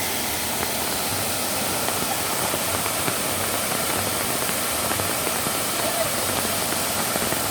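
Steady noise of falling water, even and unbroken, as from a waterfall or a heavy downpour.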